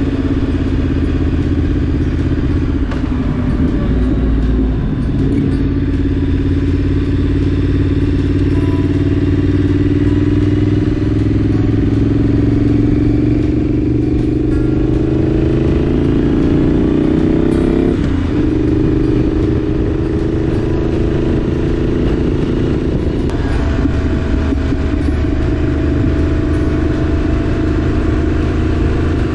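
Triumph Street Scrambler's parallel-twin engine pulling hard on the road, its pitch climbing steadily and then dropping at two upshifts in the second half.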